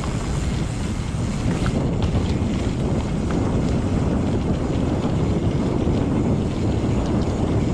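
Wind buffeting the microphone and mountain bike tyres rolling over a dirt and gravel trail, a steady low rumble with a few faint ticks.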